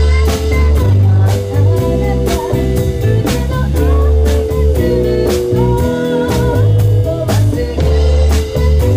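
Live band playing a 1980s Japanese pop song: drum kit keeping a steady beat under electric guitars, keyboard and saxophone, with long held melody notes.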